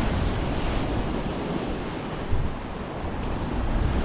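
Ocean waves surging, with wind buffeting the microphone in a steady low rumble.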